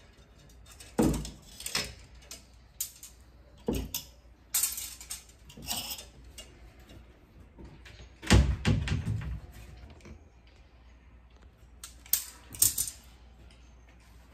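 Household items being handled and set down: irregular knocks, clicks and rustles, with the heaviest thump about eight seconds in and a quick run of sharp clicks near the end.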